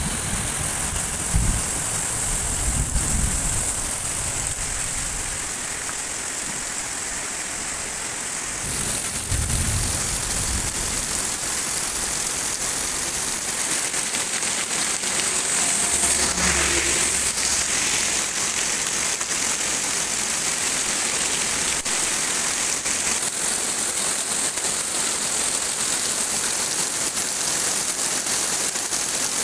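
Heavy rain falling steadily, a dense even hiss, with low rumbles now and then.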